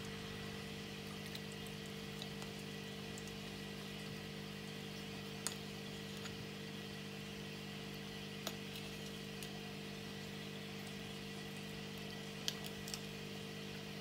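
A few light clicks of a serving spoon against a small serving bowl and the plate as meat juice is spooned over rice, over a steady low hum.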